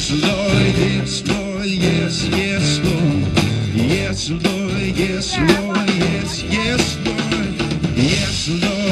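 Live band playing rock music with a steady drum-kit beat.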